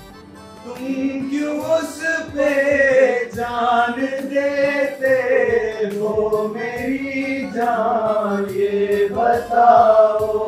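A man singing poetry in tarannum style: one male voice holding long, drawn-out melodic notes that glide up and down.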